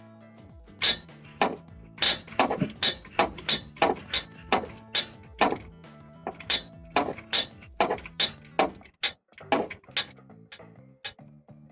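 Music playing in the background under a string of sharp, irregular metal clicks and clinks of hand tools working on the starter mounting.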